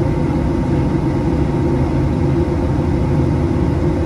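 Steady cabin drone inside a Boeing 737-800 in flight: its CFM56-7B turbofans and the airflow heard as a constant low rumble, with a few faint steady hum tones above it.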